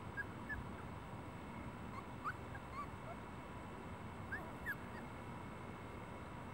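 Young puppies whimpering: short, high squeaks, a few at a time in scattered clusters.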